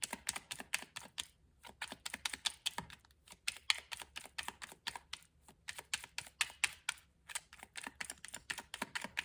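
Quick, irregular light clicks and taps, several a second, in runs broken by short pauses, with the pattern of typing on a keyboard.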